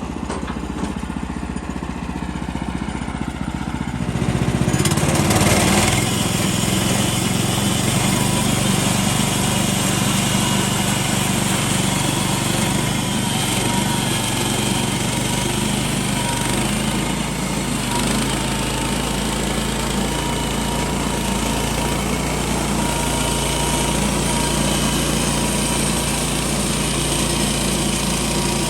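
Gasoline engine of a Woodland Mills HM126 portable bandsaw sawmill running at low speed, then throttled up about four seconds in and running steadily at high speed for the rest.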